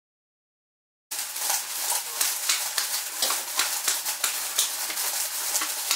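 A brush scratching paint onto the paper skin of a ribbed paper lantern: a crackly rasping made of many quick, irregular small strokes. It starts suddenly about a second in, after silence.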